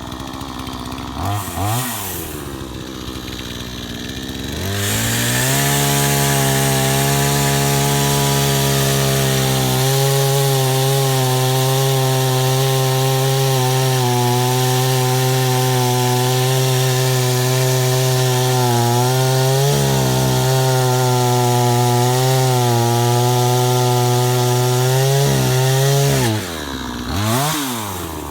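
PROYAMA 62cc two-stroke gas chainsaw idling, blipped briefly, then opened to high throttle about five seconds in and held at a steady high pitch for about twenty seconds before dropping back to idle near the end with one more short blip.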